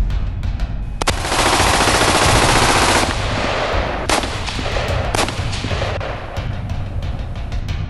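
Movie-style gunfire sound effects: a burst of rapid automatic fire lasting about two seconds starts about a second in, followed by two single loud shots about a second apart, over a low pounding rumble.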